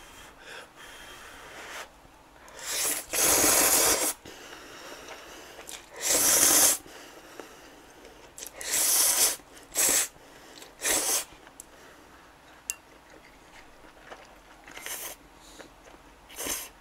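A person slurping thick instant ramen noodles (Ottogi Odongtong-myeon), a series of about seven loud, breathy slurps at irregular gaps.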